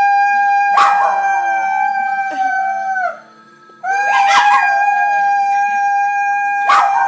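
A Maltipoo howling along with a man who howls with it: two long, held howls, really loud, with a brief pause about three seconds in.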